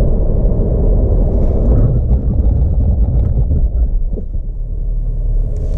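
Cabin noise of a 2018 Holden Commodore VXR slowing hard from about 110 km/h, with low road and tyre rumble as its 3.6-litre V6 drops toward low revs. Near the end the rumble gives way to a steadier engine hum.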